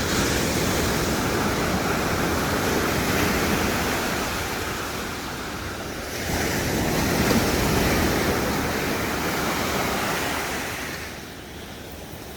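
Pacific surf breaking and washing up the beach, the roar swelling and falling as waves come in, with wind buffeting the microphone.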